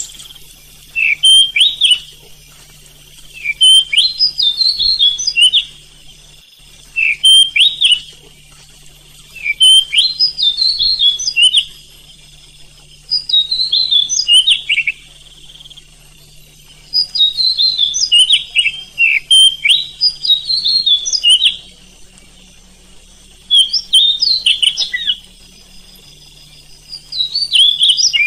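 Oriental magpie-robin (kacer) singing: loud phrases of quick, rising and falling whistled notes, each one to two seconds long, repeated about every three seconds with short pauses between.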